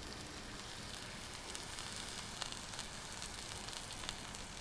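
Raw ground-beef patty sizzling faintly on a hot flat-top griddle: a steady hiss with a few small crackles.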